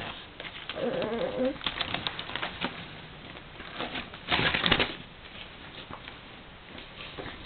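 Magazine pages rustling and flapping as a baby handles them, in irregular short bursts, with a louder burst of paper noise about four and a half seconds in. A short, wavering baby vocalisation comes about a second in.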